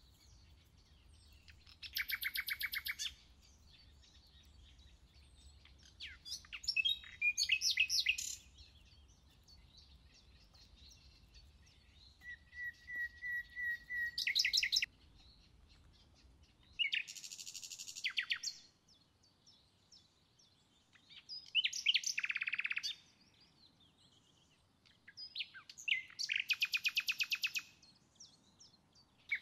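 A songbird singing in short phrases of rapid, high trilled notes, each a second or two long, repeated every few seconds, over a quiet forest background.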